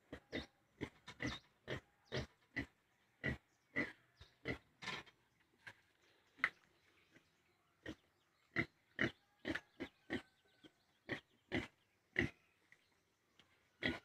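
Piglet grunting in short, separate grunts, about two a second, with a pause of a couple of seconds midway.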